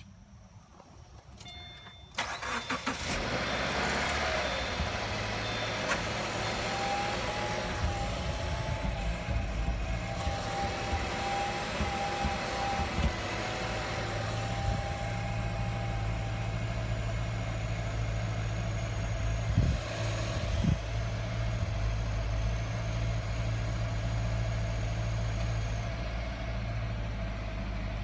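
2015 Subaru Forester 2.0XT's turbocharged flat-four cranking and catching about two seconds in, then idling roughly on a cold start, misfiring repeatedly. A few sharper jolts stand out about twenty seconds in.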